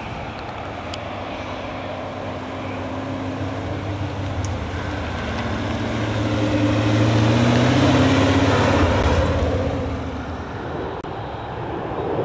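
Maserati Khamsin's V8 engine as the car drives past. The engine note grows louder and climbs in pitch as it pulls, is loudest about eight seconds in, then fades as the car moves away.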